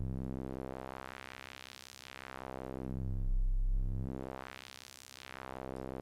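A low sustained software-synthesizer note played through a bandpass filter whose cutoff is swept up and down by hand, so only a moving middle band of its harmonics comes through. The tone grows brighter and duller in slow waves, rising twice.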